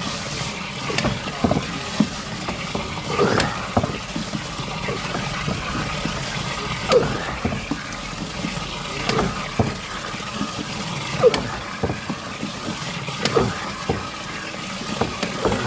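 Water trickling and gurgling in a drain pipe, with short gurgles and sharp knocks every couple of seconds.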